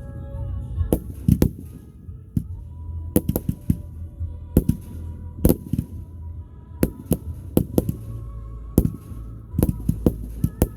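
Fireworks going off: a rapid, irregular series of sharp bangs, often in quick pairs or clusters, over a steady low rumble.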